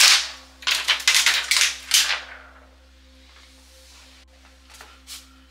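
Clear plastic protective film tearing free of a laptop palm rest, then the loose sheet crinkling in the hands in a quick run of sharp rustles for about a second and a half. After that it goes quiet, with a couple of faint taps near the end.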